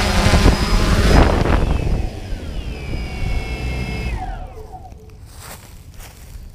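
Small motors running loud, then losing power about a second in and spinning down, their whine falling steadily in pitch over the next few seconds until it fades.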